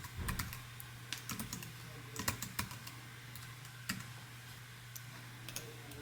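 Scattered, irregular clicks and taps over a faint steady low hum.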